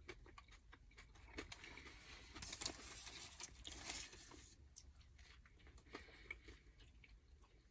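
A person chewing a mouthful of fast-food sandwich close to the microphone: faint, scattered small clicks of chewing, busiest about two to four seconds in.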